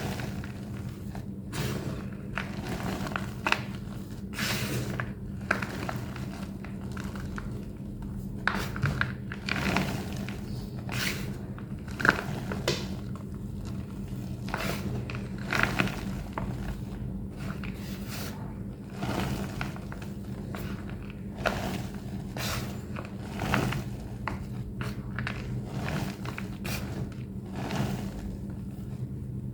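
Thick blocks of plain white homemade gym chalk being crushed and squeezed by hand: irregular crunches and squeaks, the block's squeaky texture. A steady low hum runs underneath.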